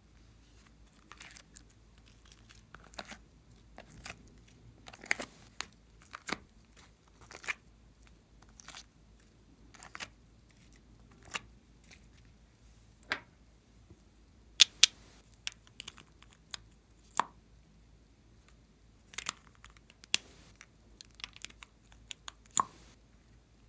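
Hands working sticky slime out of a plastic heart-shaped mold and setting it into a glass dish: irregular sharp clicks, crackles and peeling sounds, one or two a second, with a few louder snaps, the loudest a close pair about two-thirds of the way through.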